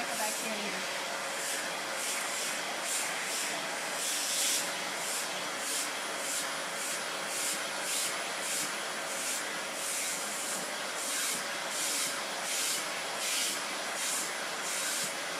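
Vacuum cleaner running with its suction hiss swelling and fading over and over, about once or twice a second, as the brush nozzle is drawn along a cat's fur, under a steady motor hum.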